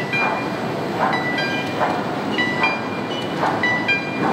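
Factory machinery on a concrete tunnel-segment production line: a rhythmic knocking clatter about every 0.8 s, with short electronic beeps at several pitches sounding over it.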